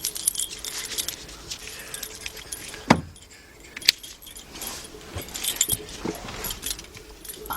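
A bunch of car keys jangling and clinking, with two sharp clicks about three and four seconds in.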